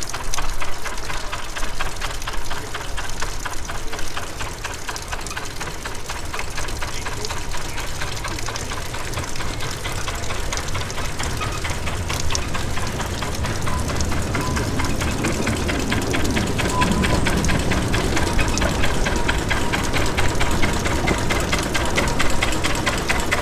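Small narrow-gauge locomotive working at low speed, its engine running with a rapid, even beat.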